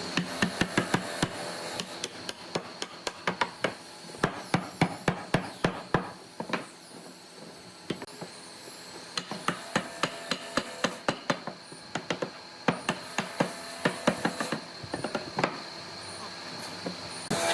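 Hammer blows on wood, struck quickly, about three to four a second, in several runs with short pauses between.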